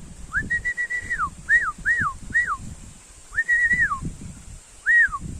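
A series of clear whistled notes, each rising and then falling in pitch: a long held note with a slight warble, three short notes, another long note and a last short one, over low rustling.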